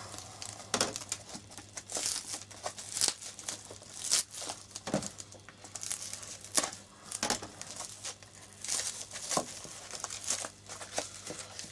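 Tightly wound plastic packaging wrap being slit, torn and crinkled open by hand, with irregular crackling and ripping.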